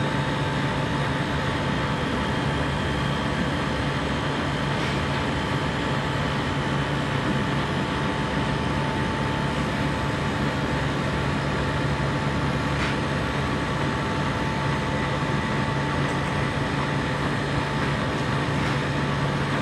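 A compressor running steadily: a constant low hum with a thin steady whine above it, unchanging in pitch and level.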